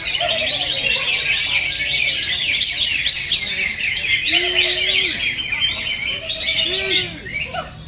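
Several cucak ijo (greater green leafbirds) singing at once in a dense, unbroken stream of rapid chirps, trills and warbles. A few lower whistled notes are mixed in.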